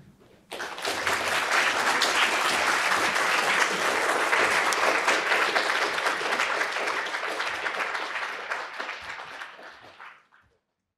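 Audience applauding, many hands clapping together. It starts about half a second in and dies away near the end.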